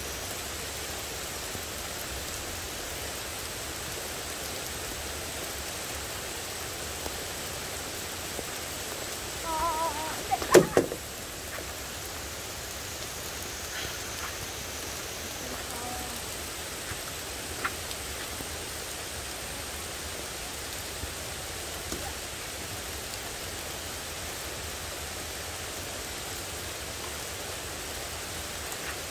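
Heavy rain falling steadily, an even hiss throughout. About ten seconds in there is one sharp knock, louder than the rain, and a few faint clicks follow later.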